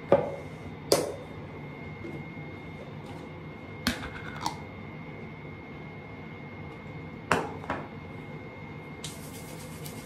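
Sharp clicks and taps of a small plastic tub and its lid being handled, several times in pairs. About nine seconds in, a steady swishing hiss of hands rubbing together begins.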